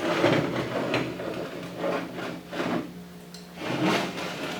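Steel parts and a tool square being handled and slid against each other on a metal workbench: irregular rubbing and scraping with a few light knocks, over a steady low hum.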